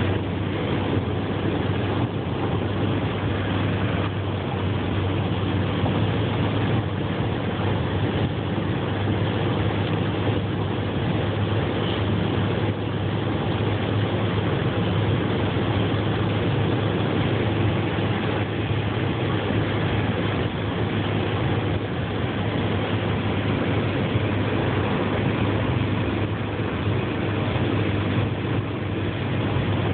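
Steady road noise inside a car's cabin at highway speed: a low drone of engine and tyres with an even hiss over it.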